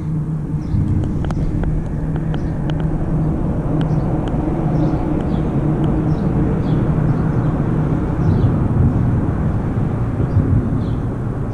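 A steady low rumble with a low hum in it, loud throughout, with faint short high chirps and a few light ticks over it.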